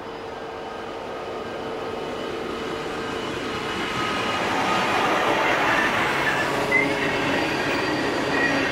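Diesel-hauled container train, led by diesel-electric locomotives NR31 and AN5, approaching and passing, growing steadily louder. Thin high squeals come in over the rolling noise in the second half.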